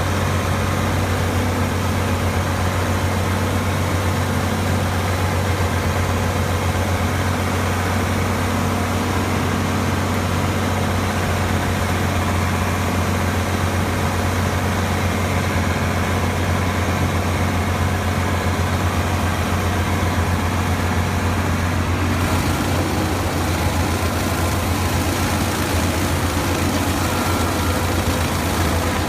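An engine running steadily at idle, a loud low drone that shifts slightly about two-thirds of the way through.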